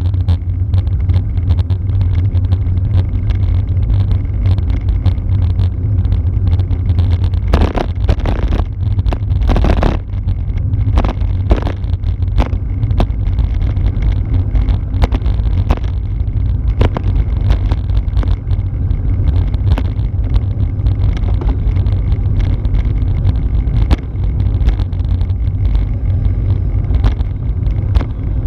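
Wind rushing over the microphone of a handlebar-mounted camera on a road bike at about 20 to 28 km/h, with steady tyre and road rumble. A run of sharp rattling knocks comes about a third of the way in, and lighter clicks come later.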